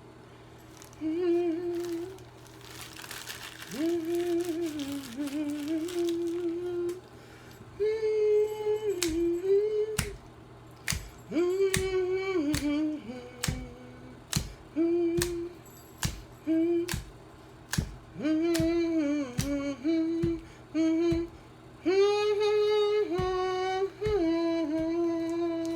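A woman humming a slow melody in short held phrases, with sharp clicks falling between many of the notes.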